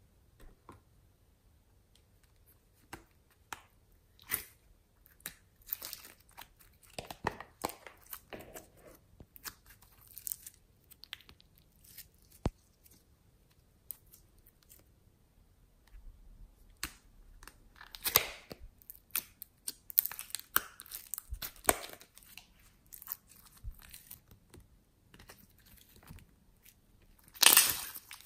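Hands pressing, poking and stretching slime and soft clay: scattered sticky crackles and pops. They are loudest near the end, as a glossy pink slime is squeezed and pulled apart.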